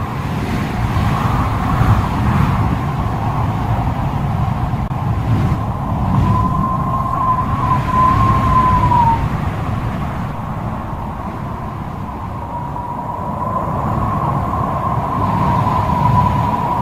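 Thunderstorm wind buffeting the microphone over a heavy downpour, a dense low rumble throughout. A thin, high wavering tone comes in about a third of the way through, dies away with a falling slide, and returns for the second half.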